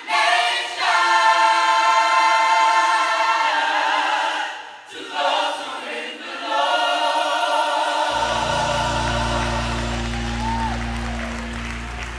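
Gospel choir singing long held chords, with a short break about five seconds in. Near the end a low steady bass tone comes in under the voices as the singing fades.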